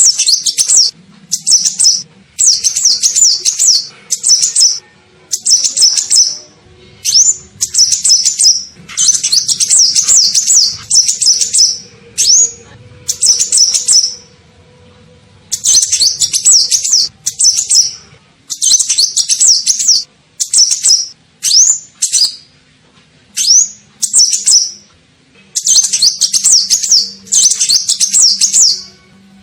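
Olive-backed sunbird ('kolibri ninja') calling as a lure call: short bursts of rapid, high twittering chirps, each lasting about half a second to two seconds, repeated with brief pauses between them.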